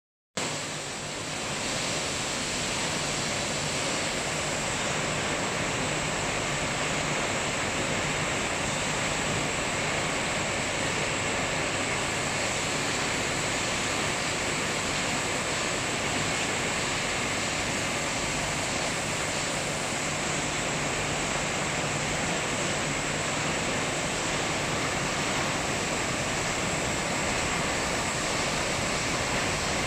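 Steady machine din of a PET bottled-water filling line in operation: bottle conveyors and filling machinery running together as an even, hissing noise with no distinct knocks or rhythm.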